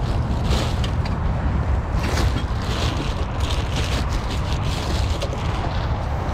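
Rustling and scraping of items and plastic bags being handled and packed into a folding pull-along trolley, over a steady low rumble.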